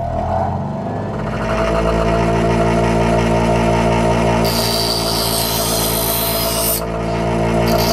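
Bench grinder motor finishing its spin-up and then running with a steady hum. About four and a half seconds in, a harsh grinding hiss starts as a small metal part is pressed against the grinding wheel to sharpen it. The hiss lasts about two seconds and starts again near the end.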